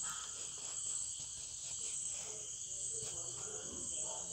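Steady high-pitched chirring of insects in the background.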